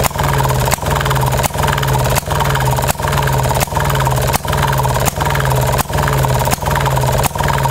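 1929 Maytag Model 92 single-cylinder two-stroke engine running steadily, its rapid even firing broken by a brief drop in loudness about every three-quarters of a second.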